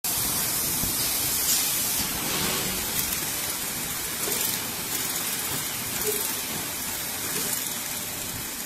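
Piston filling machine running: a steady hissing rush with a few faint clicks.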